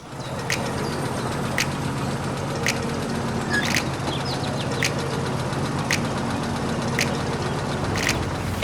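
Small engine of a home-built mini tractor running steadily at idle, with a sharp tick about once a second.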